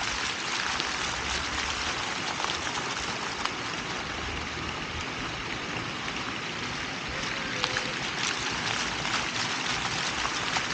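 Water from a multimedia fountain's jets splashing into its pool: a steady rushing of water.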